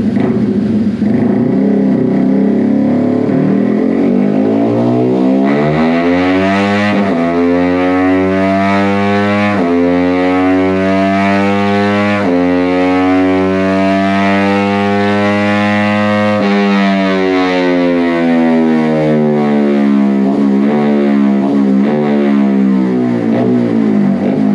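Yamaha Sniper 150 single-cylinder engine, fitted with racing cams and a racing exhaust, doing a dyno pull through the gears: the pitch climbs steadily, dropping sharply at three upshifts, then falls away as the throttle is closed.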